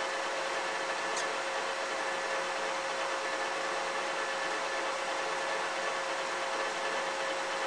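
Bridgeport ROMI EZ-Path I CNC lathe running under program, spindle turning at 265 rpm as the carriage travels along the bed: a steady mechanical hum with a steady whine over it.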